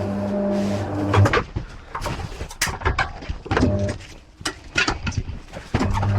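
A machine's electric motor hums steadily, stops about a second in, and starts again near the end. In between are sharp knocks and clicks of tyre-fitting tools and metal parts being handled.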